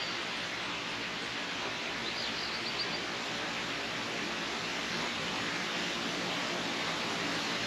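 Steady rush of flowing water, getting slightly louder toward the end, with a short bird call of a few quick high notes about two seconds in.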